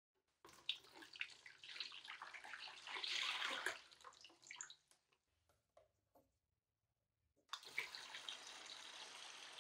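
A cloudy solution is poured from a plastic bowl into a plastic tub, splashing and trailing off after about five seconds; the tub is being filled as an electrolysis bath. After a short pause with a couple of light knocks, a steady stream of water from a hose runs into the tub and cuts off at the end.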